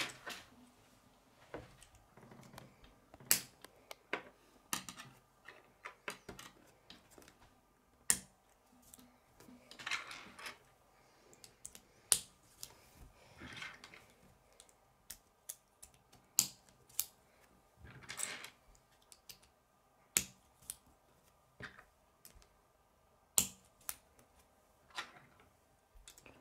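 K'nex plastic rods and connectors clicking and snapping together in the hands, with irregular sharp clicks and a few brief rubbing sounds of plastic.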